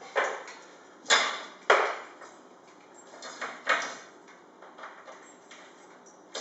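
Several sharp knocks and clicks from a TV wall bracket and its screws being handled and set against the wall, the loudest about a second in and just under two seconds in, with two more around three and a half seconds.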